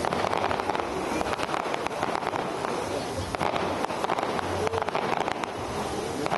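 Aerial fireworks bursting in a continuous barrage: a dense run of sharp pops and reports, one close on another, with no pause.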